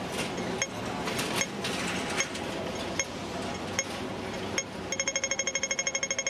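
Sharp metallic clinks with a short ring, repeating evenly about once every 0.8 s over a steady rustling hiss. About five seconds in, a fast, pitched pulsing starts, about eight pulses a second, like a music loop.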